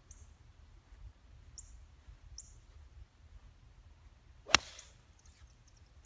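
A golf iron striking a golf ball once on a short approach shot, a single sharp click about four and a half seconds in with a brief whoosh trailing after it. A few faint high chirps come before it.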